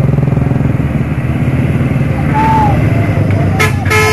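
Heavy diesel truck engines running hard under load as chains pull a stuck truck back onto the road. A truck horn toots a few times near the end.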